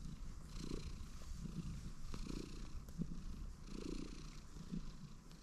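Ginger-and-white cat purring close up while it is petted, the purr swelling and easing with each breath, about once every second and a half.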